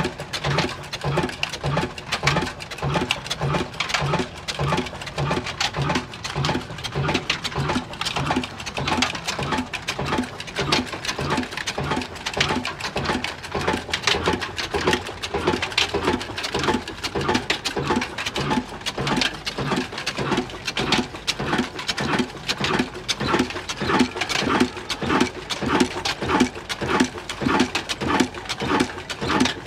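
Old black Ruston Hornsby diesel engine running at a steady speed, its exhaust beating in an even rhythm.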